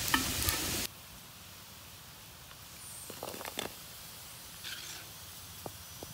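Hot oil sizzling loudly as marinated chicken deep-fries in a kadai, cutting off suddenly about a second in. After that, only a few faint clicks and taps.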